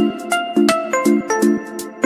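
Background music: short repeated chords with a higher melody line moving over them.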